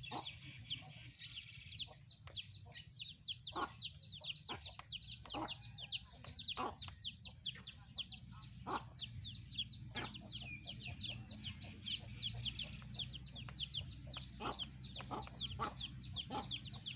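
A chorus of chicks peeping: many short, falling chirps overlap without a break, several a second, with occasional short clicks among them.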